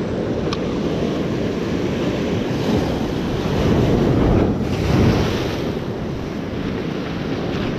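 Ocean surf surging against a rocky seawall, with wind buffeting the microphone; the wash swells louder about four to five seconds in.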